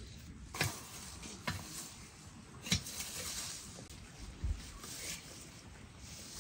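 Long-handled garden tool striking and scraping into soil, about five strikes over a steady scratchy scraping.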